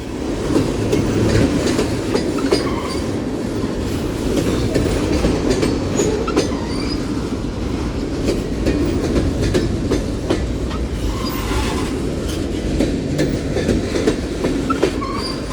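Union Pacific freight train's tank cars rolling past, loud and steady: wheels rumbling on the rails with repeated clicks as they cross rail joints, and a few brief, faint wheel squeals.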